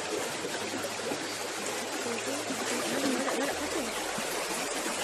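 Steady rush of a flowing stream, an even hiss of water that holds level throughout.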